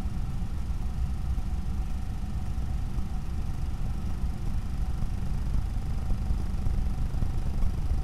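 Steady low rumble with a faint, constant high whine and hiss, the background noise picked up by a night-vision trail camera's microphone; the fox makes no audible sound.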